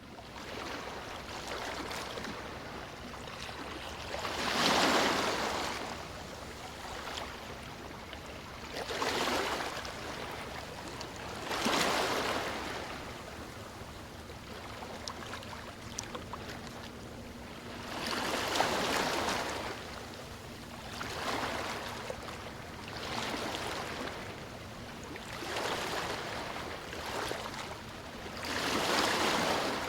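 Sea waves breaking on a beach and washing up the shore, one surge every few seconds over a steady rush of surf, with the loudest breakers about five seconds in and near the end.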